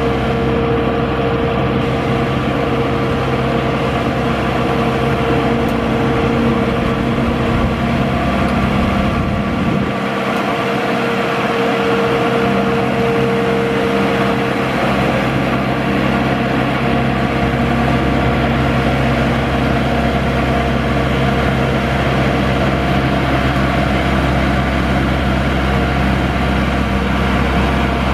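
Engine of a Maxxi WD3100 crawler rotavator running steadily under load, with a constant whine above its low hum, as it drives its rotary tiller through paddy mud.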